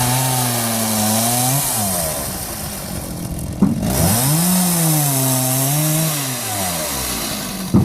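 Two-stroke chainsaw running at high throttle through two cuts. Its engine pitch sags under load in the middle of each cut, then drops off as the saw comes out of the wood.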